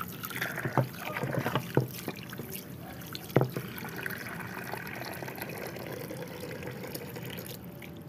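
Water trickling and sloshing as a small terracotta bowl is rinsed by hand, with a few sharp knocks, the loudest about three and a half seconds in.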